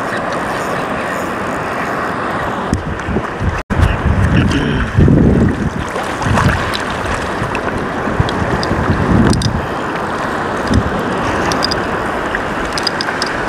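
Wind buffeting the microphone over the steady wash of surf, with a brief cut-out about a quarter of the way in, then several heavier low rushes of water sloshing as someone wades through the waves.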